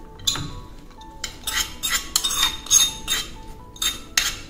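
A steel spoon tapping and scraping inside a small tempering pan as ghee-fried cashews, raisins and coconut are knocked out into a pot of payasam. It makes a run of about nine sharp metal clinks and scrapes.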